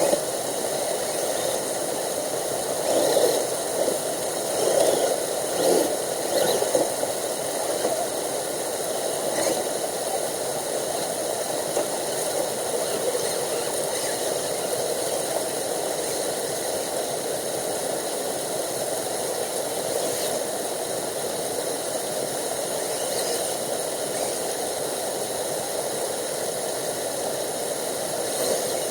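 Radio-controlled crawler's electric motor and drivetrain running steadily with a rattle. A few louder surges come in the first several seconds.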